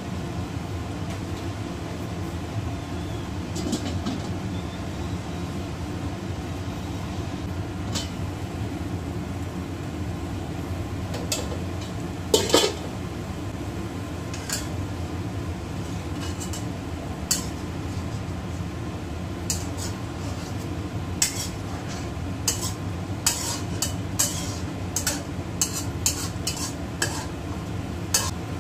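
Wok spatula scraping and knocking against a wok while stirring simmering tofu, tomato and mushroom in broth. The strokes begin about a third of the way in, with one loud clack shortly after and a quick run of them near the end, over a steady low rumble.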